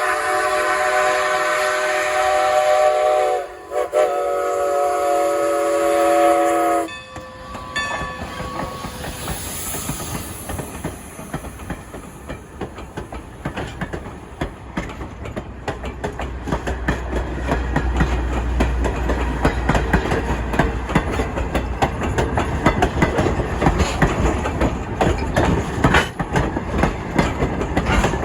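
Train horn sounding two long blasts, the second cutting off about seven seconds in. Then the train passes with wheels clacking over the rail joints, and a deep rumble swells from about halfway.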